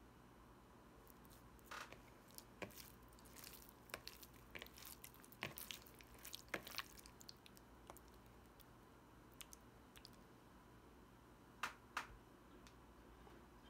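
Raw sliced beef being squished and kneaded by hand with egg yolks and black pepper in a bowl: soft wet squelches and clicks for several seconds, then two sharp clicks near the end.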